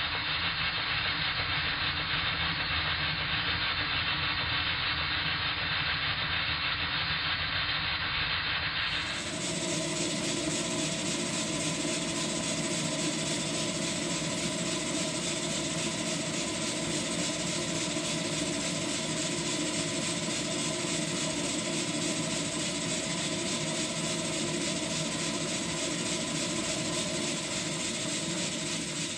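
Stuart Twin launch model steam engine, a small twin-cylinder engine, running steadily and fast on steam, a continuous mechanical running sound. The sound turns brighter about nine seconds in.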